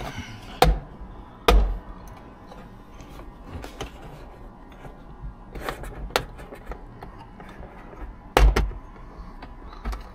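Plastic interior trim around the rearview mirror being unclipped and handled: scattered sharp clicks and knocks. The loudest three, each with a dull thud, come about half a second, a second and a half, and eight and a half seconds in.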